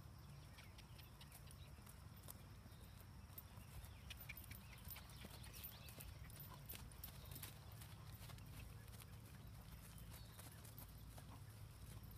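Faint hoofbeats of a Rocky Mountain Horse under saddle on grass, clearest around the middle as the horse passes closest, over a steady low rumble.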